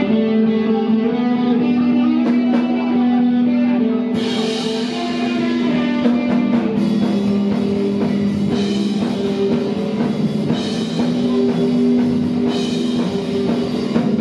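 Live rock band playing: electric guitar chords ring out, then the drum kit comes in about four seconds in, with cymbal crashes roughly every two seconds.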